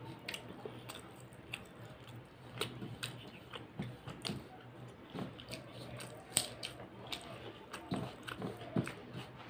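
Close-up mouth sounds of chewing mouthfuls of rice and mutton curry: irregular wet smacks and sharp clicks, a few to several a second.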